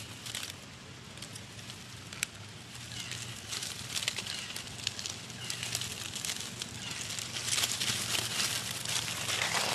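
Dry fallen leaves crackling and rustling underfoot, sparse at first, then busier and louder over the last several seconds as the movement across the leaf litter picks up.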